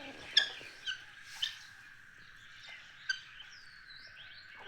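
Small birds chirping, with a few sharp clicks and a steady high-pitched tone underneath.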